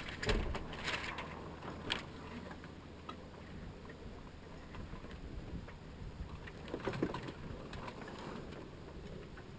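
Small sailboat under way: a steady low rumble of wind and water, with brief flapping and knocking sounds from the loose headsail and rigging. These are loudest in the first couple of seconds and again about seven seconds in.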